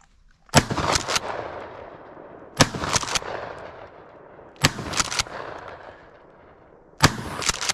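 Shotgun fired four times, about two seconds apart, each blast trailing off over the field.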